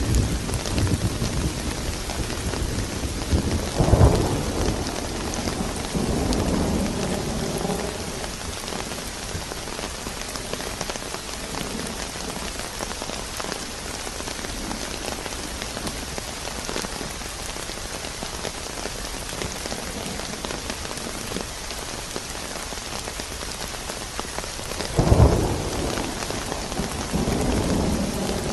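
Steady rain falling through a thunderstorm, with a sharp thunderclap about four seconds in and another near the end, each trailing off into a low rolling rumble.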